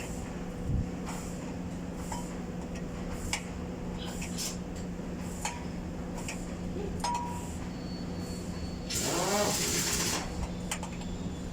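Scattered light metallic clinks of hand tools against metal over a steady low hum, with a short hiss about nine seconds in.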